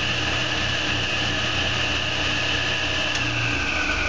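A 10-inch table saw running at full speed with its blade spinning free, not cutting: a steady, high whine. About three seconds in the pitch begins to fall slowly as the saw is switched off and the blade coasts down.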